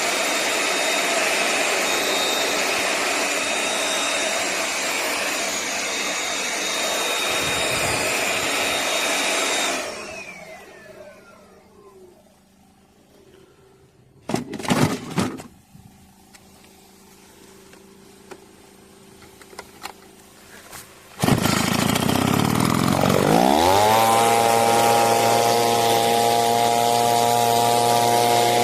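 Handheld engine leaf blower running with a loud rush of air for about ten seconds, then winding down with a falling whine. After a quieter stretch broken by a brief loud rattle, the engine starts abruptly, its pitch sweeping up and settling into a steady drone.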